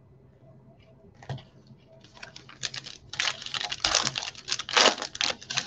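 Foil wrapper of a Panini Mosaic football-card pack being torn open and crinkled by hand: a rapid, irregular crackling that starts about a second in and grows loudest in the second half.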